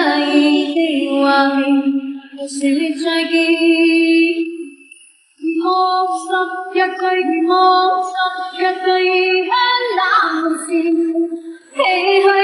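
Background music: a high voice singing a melody, breaking off briefly about five seconds in.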